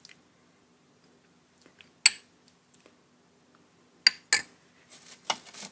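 A spoon clinking and scraping against a dish as dipping sauce and chili paste are served. There is one sharp, ringing clink about two seconds in, two more about four seconds in, and a few light taps near the end.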